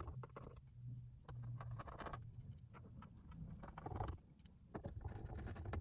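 Faint scattered clicks and small metallic taps as screws are driven back into a cassette boombox's chassis with a screwdriver, over a low steady hum.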